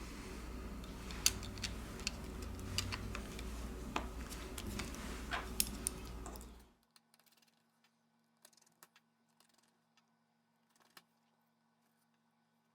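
Small sharp clicks and taps of smartphone parts and tools being handled during reassembly, over a low steady hum. The hum cuts off abruptly about seven seconds in, and only a few faint clicks follow.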